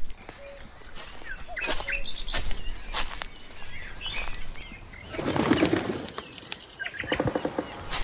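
Birds chirping with flapping wings and scattered sharp clicks and rustles, with a louder rush of sound about five seconds in.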